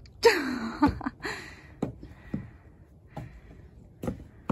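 A sharp breathy gasp with a falling pitch near the start, then a few separate knocks of footsteps and handholds on the wooden boards and rail of a broken boardwalk.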